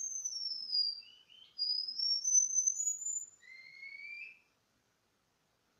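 Cuban bullfinch singing: a song of thin, high whistles that glide down, then rise, ending about four and a half seconds in with a lower rising whistle.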